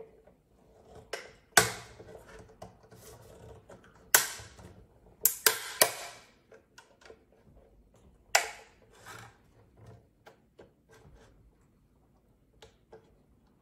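Screwdriver tips prying and scraping at the plastic snap-in clips holding the top grill of a Linksys MX5300 router, with several sharp snaps and clicks among softer ticks and scrapes.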